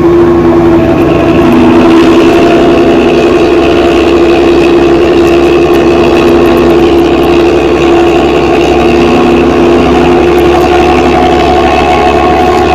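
Diesel bus engine running steadily through a modified 'ngorok' exhaust: a loud, snoring drone with several steady held tones.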